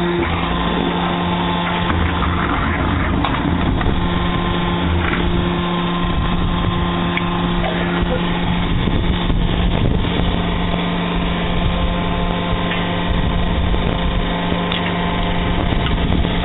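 Hydraulic brick-making machine running, its motor giving a steady, loud hum, with occasional knocks and clatter from the machine and pallets.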